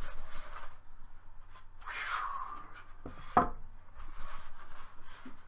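Styrofoam packing pieces rubbing and scraping against each other as the foam case is handled and pulled open, with a single knock about three and a half seconds in.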